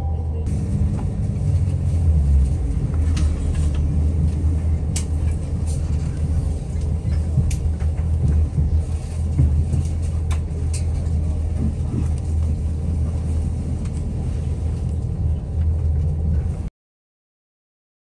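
Irish Rail Class 22000 diesel multiple unit heard from inside the carriage, its diesel engine running with a steady low hum as the train pulls away from a station, with a few faint clicks. The sound cuts off suddenly near the end.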